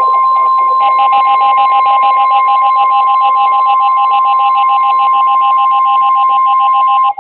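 Emergency alert attention tone between broadcast warnings: a loud, steady electronic alarm of two pitches sounded together, joined about a second in by a fast pulsing higher tone. The higher of the two steady pitches cuts off just before the end.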